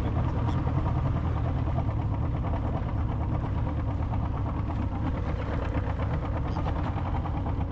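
Boat engine running steadily at low speed, a constant low rumble.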